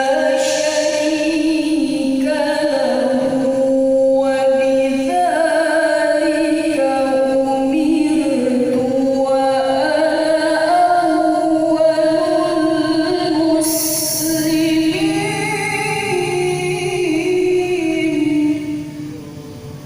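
A woman's voice reciting the Qur'an in the melodic tilawah style, holding long ornamented notes that glide from one pitch to the next. It drops away near the end.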